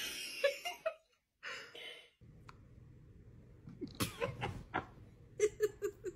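A dog licking a man's bald head, in two short bouts of quick wet licks and smacks, over a steady low hum.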